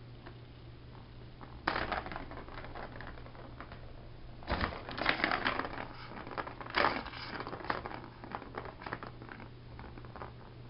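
Plastic ball-in-track cat toy clattering in bursts as a cat bats at it: the ball rattles around the plastic track, with three louder flurries and scattered smaller clicks between them.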